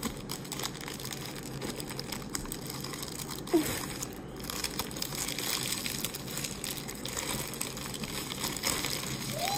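Crinkly packaging rustling and crackling as hands work a fidget popper toy out of its wrapper, with one brief louder sound about three and a half seconds in.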